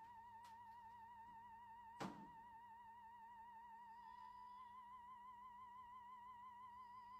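Quiet background music: one high, wavering tone held steady, with a single sharp thump about two seconds in.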